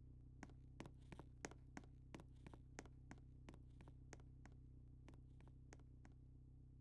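Near silence: room tone with a steady low hum and faint, uneven soft clicks, about three a second.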